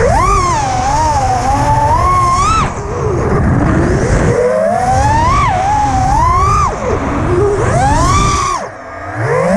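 Brushless motors of a 5-inch FPV freestyle quadcopter (T-Motor Blackbird V2, 1950 kv, with 5143 three-blade props) whining, the pitch swooping up and down with each throttle change, over a rough wind-like rush. Several times the whine drops as the throttle is cut, most deeply near the end, then climbs back.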